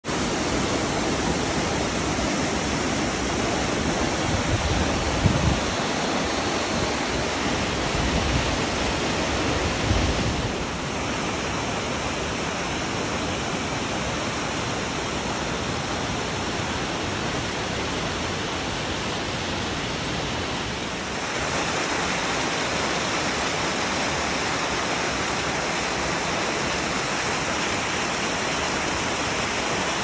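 Steady roar of rushing water from waterfalls pouring into rocky pools. The tone shifts slightly about ten and twenty seconds in, and there are a couple of brief low bumps around five and ten seconds in.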